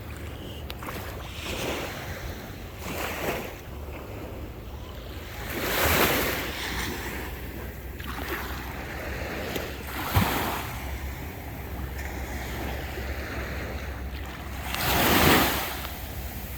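Small waves washing up on a sandy beach, swelling and fading every few seconds, the two biggest about six seconds in and near the end. Wind rumbles on the microphone underneath.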